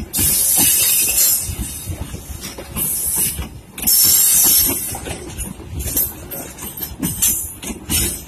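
Local economy-class passenger coaches rolling past close by, wheels knocking and clattering on the rails, with surges of rushing hiss.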